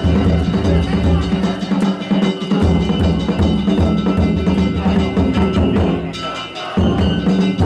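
Danjiri float's festival percussion (narimono): taiko drums and kane hand gongs beating a fast, steady rhythm with continuous metallic ringing. The drum drops out briefly about six seconds in, then comes back.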